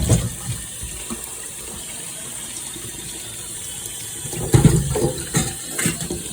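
Kitchen tap running steadily as peeled sweet potatoes and coco are rinsed, with a cluster of louder knocks and splashes a little past halfway.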